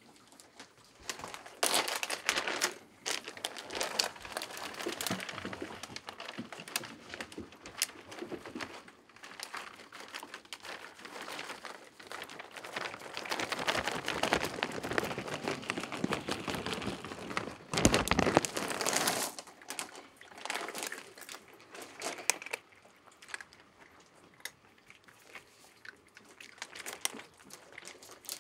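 Clear plastic bag of dry cat food crinkling and rustling as it is handled and kibble is shaken out onto a carpeted shelf. There is a brief louder knock about two-thirds of the way through, and it goes quieter near the end.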